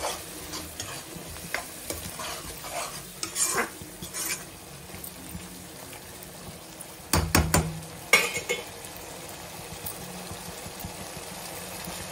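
Steel spatula stirring soya-chunk curry in a non-stick kadai, scraping and clicking against the pan over a steady low sizzle of the simmering gravy. A few louder clacks of the spatula on the pan come about seven seconds in and again about a second later.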